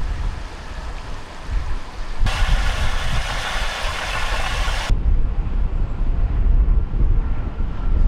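Wind buffeting the microphone, a gusty low rumble throughout. A steady hissing rush starts abruptly about two seconds in and cuts off just before five seconds.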